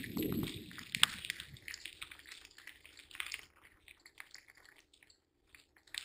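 Cyclocross bike rolling over a bumpy dirt trail, with tyre rumble and rattling knocks. It goes quieter after about three and a half seconds, leaving only scattered light ticks.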